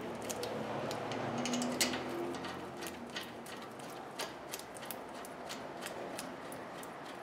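Brake caliper bolts being fitted and threaded into a car's front caliper by hand: light, irregular metallic clicks and small rattles of metal parts being handled.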